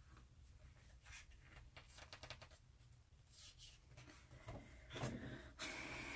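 Hand rubbing on and then turning the glossy pages of a large art book: faint paper rubbing and light ticks, then a louder rustle as a page is turned near the end.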